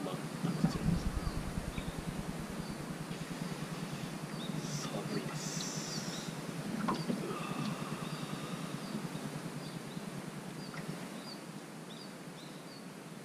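Steady, fluttering low rumble of outdoor noise on a boat on the water, with faint, scattered high chirps. A stronger low thump comes about a second in.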